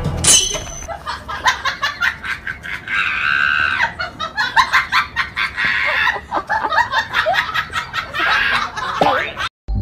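Laughter mixed with the peeping of a baby chick.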